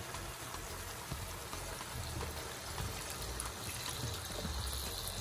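Vegetable broth pouring steadily from a carton into a pot of browned beef ribs, a continuous trickle and splash of liquid.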